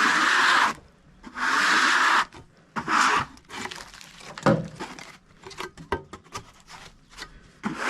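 A hand rubbing in repeated strokes over the rough face of a freshly sawn board, feeling for waves in the cut, with scattered light knocks of wood in between.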